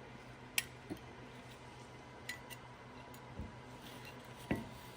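A few scattered light clicks and knocks, about five, of brake parts being handled and worked by hand at a wheel, over a faint steady hum.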